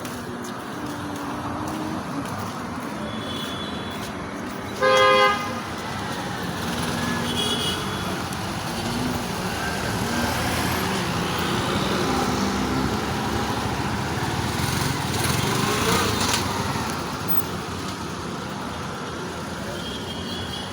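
Street traffic. A vehicle horn gives one short, loud blast about five seconds in, over steady road noise that swells in the middle as vehicles pass.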